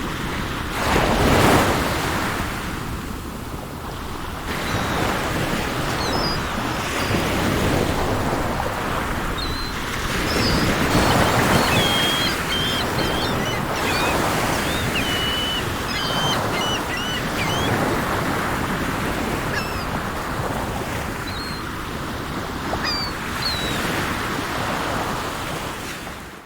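Sea waves rushing and breaking in repeated surges, with small birds chirping over the surf, busiest in the middle. The sound cuts off abruptly at the end.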